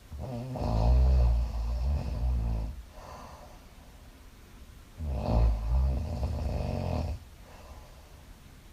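A woman snoring in her sleep: two long snores about five seconds apart, each lasting two to three seconds, with quieter breathing between them.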